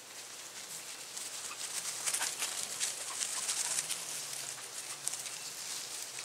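Leafy herbs rustling and snapping as they are handled and picked, a busy run of short crackles that thickens from about a second and a half in, with faint bird chirps.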